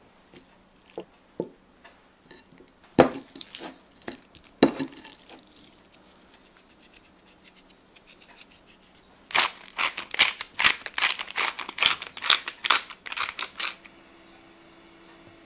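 A knife works a raw chicken thigh on a wooden chopping board, with two sharp knocks about three and four and a half seconds in. After a pause, a salt grinder is turned over the chicken in rapid grinding clicks for about four seconds.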